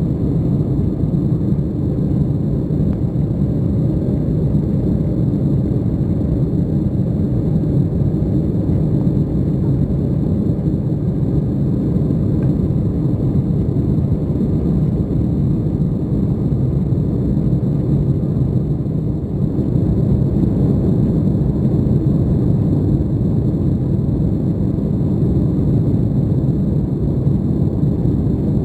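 Steady cabin noise of an Embraer 190 airliner in flight, heard from inside the cabin: a dense low rumble of its GE CF34 turbofan engines and the air rushing past the fuselage.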